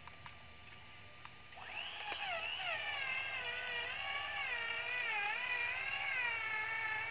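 Electric motor and gearbox of a loaded RC truck whining as it crawls through loose dirt. The whine starts about a second and a half in, and its pitch wavers up and down with the throttle.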